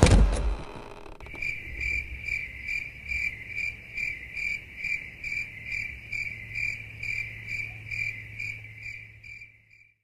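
Cricket chirping sound effect, evenly spaced chirps about three a second. It is used as the comic awkward-silence gag. A loud crash fades out in the first second, before the chirping starts.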